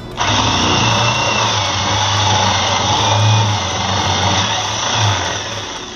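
An electric woodworking power tool running loudly for several seconds: a steady rushing noise over a low motor hum, starting abruptly and dying away near the end.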